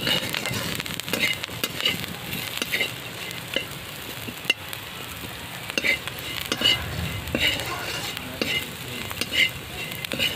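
Neem leaves and small potato pieces frying in oil, sizzling steadily, with a spatula stirring and scraping the pan at irregular intervals as the leaves finish frying.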